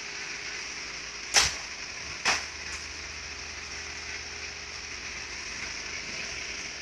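Two sharp clicks about a second apart, with a faint third just after, as parts of a Riso duplicator's pressure mechanism are fitted back into place by hand; a steady hiss lies under them.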